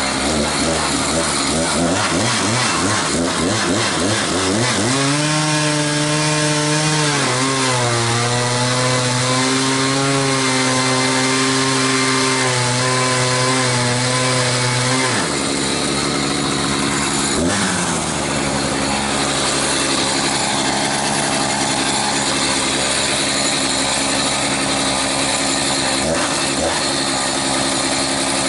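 Echo CS-590 Timberwolf chainsaw's two-stroke engine cutting into a large log. It revs up about five seconds in, its note drops as the chain bites into the wood, and about halfway through it falls to a lower steady note and keeps running.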